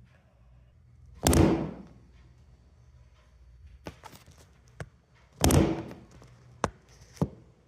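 Two heavy thuds about four seconds apart, each dying away over about half a second, with a few sharp clicks between and after them.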